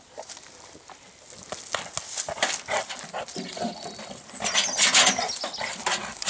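A boxer dog clambering about in a wheelbarrow and climbing out over its rim: scraping, knocking and rustling that grow louder and busier in the second half.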